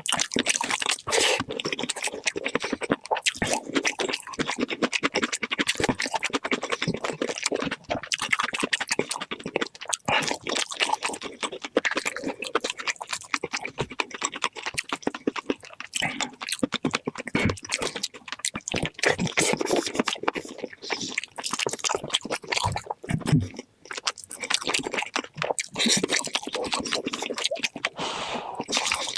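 Close-miked eating sounds sped up to double speed: rapid chewing, crunching and wet mouth sounds in a dense, unbroken stream of clicks and squelches.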